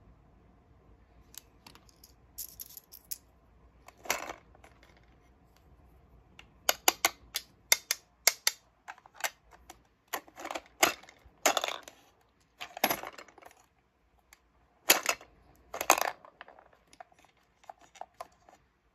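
Coins clinking and the coin mechanism of a toy Dubble Bubble gumball machine clicking and rattling, in irregular clusters of sharp clicks and clinks.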